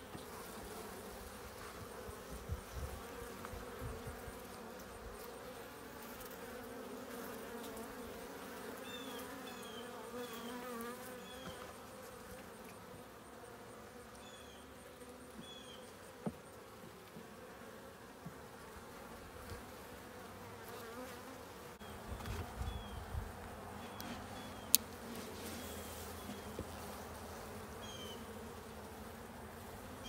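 Honeybees buzzing at an open hive: a steady, slightly wavering hum of many bees. Short high chirps come and go over it, and there is one sharp click about three-quarters of the way through.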